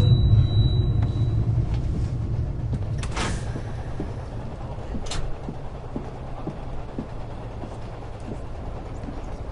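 Steady low rumble of a passenger train heard from inside the carriage, loudest at first and settling lower. A swish comes about three seconds in and a short sharp sound about five seconds in, with faint light ticks after.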